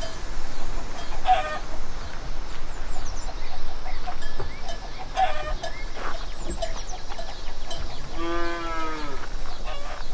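Farmyard animal sounds: hens clucking in short, repeated calls, with one longer drawn-out animal call about eight seconds in.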